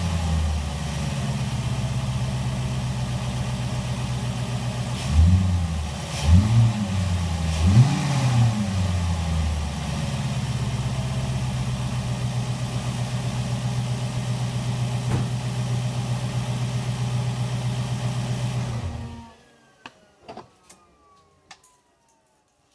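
Audi D3 A8 engine idling, revved briefly three times in quick succession, then settling back to idle before being switched off, leaving a few faint clicks. The owner reports a ticking noise from it since an oil change.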